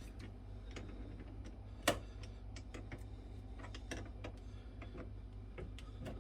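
Irregular light clicks and taps of hand tools and metal cable terminals being worked on a battery connection, with one sharper click about two seconds in, over a low steady hum.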